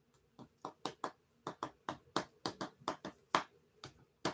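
Irregular run of light, sharp clicks, about four a second, from hands handling a small object.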